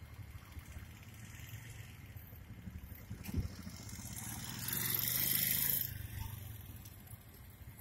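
Small motorcycle engine running at low speed as the bike rides slowly through a training course, drawing nearer. A louder rushing hiss rises over it for about a second near the middle, with a single knock shortly before.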